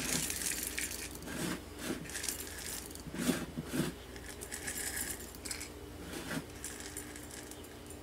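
Activated charcoal granules pouring from a bag into a glass jar, clinking and rattling against the glass in several short pours that thin out after the first few seconds.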